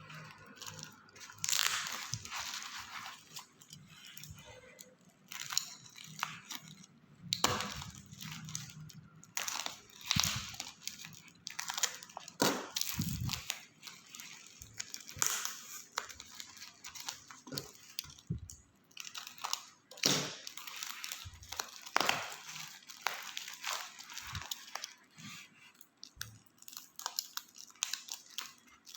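Parcel packaging being torn open and handled by hand: irregular crinkling and rustling with sharp tearing and crackling bursts.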